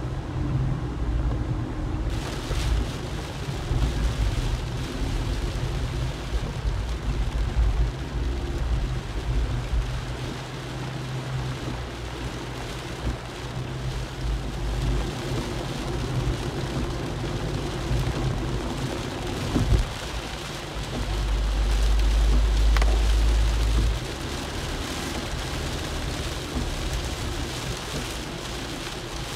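Rain hissing on a car's windscreen and body, heard from inside the cabin over the steady low rumble of the car and its tyres on a wet road. The rain hiss comes in about two seconds in, and a louder low rumble swells for a few seconds after the middle.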